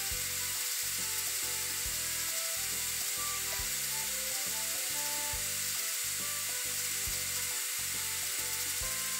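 Hot-air rework nozzle blowing steadily on a fluxed GDDR5 memory chip, a constant hiss with the flux sizzling, as the chip's solder balls are heated to reflow.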